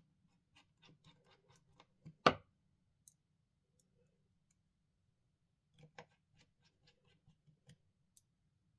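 Light clicks and ticks from driving small screws into a phone's frame with a precision screwdriver, in two short runs, with one sharper, louder click a little over two seconds in.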